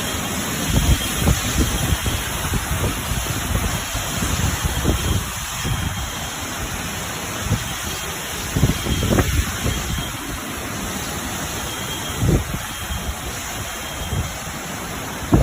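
Tropical storm wind and rain: a steady rushing noise, with now and then a gust buffeting the microphone in low thumps.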